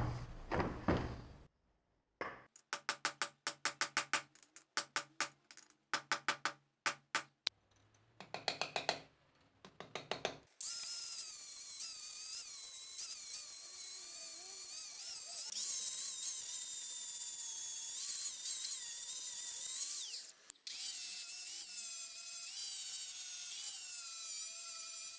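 An electric angle grinder runs against the steel axe head, grinding and smoothing it, its pitch wavering as it is pressed onto the metal. It has a brief break near the end. Before it starts, a run of quick, sharp repeated strokes comes in short groups.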